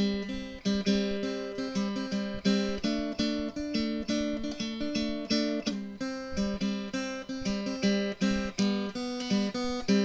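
Instrumental music on acoustic guitar, with plucked notes in a steady, even rhythm.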